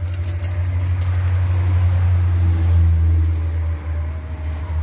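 A steady low rumble runs throughout, with light crinkling clicks of a paper seed packet being torn open and handled in the first second or so.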